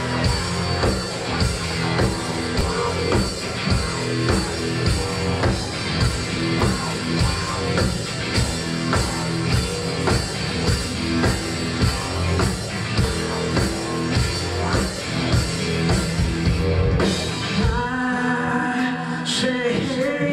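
Live rock band playing in a club hall: a drum kit keeping a steady beat under guitars and bass, with singing. The drums drop out about three-quarters of the way through, leaving the guitars and voice.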